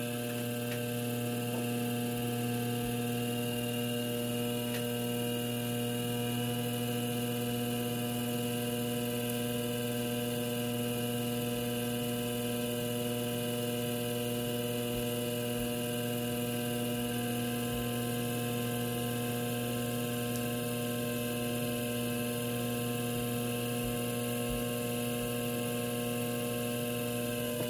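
Electric potter's wheel running at a steady speed: a constant motor hum with several steady tones above it, unchanging throughout.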